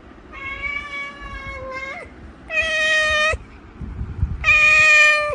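Domestic cat meowing three times, each a long drawn-out call held at a steady pitch. The first call is the longest and lifts briefly in pitch at its end. This is the cat's insistent wake-up call, wanting to play while its owner sleeps.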